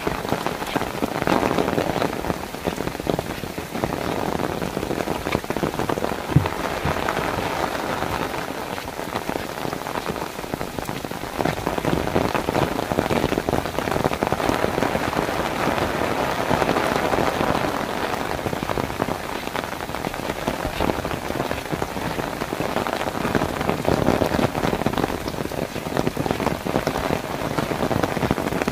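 Steady rain pattering on a wet walkway and the surrounding trees, swelling and easing slightly, with one brief knock about six seconds in.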